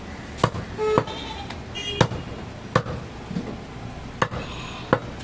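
Meat cleaver chopping on a wooden butcher's block: five sharp chops at uneven intervals over steady market background noise.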